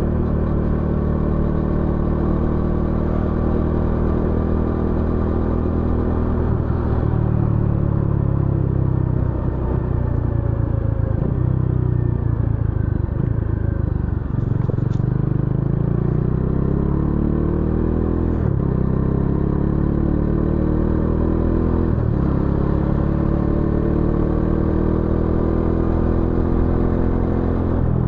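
Bajaj Dominar 400 UG's single-cylinder engine and exhaust under way on the road. The engine pitch rises steadily as the bike accelerates, then drops sharply at each upshift, several times over.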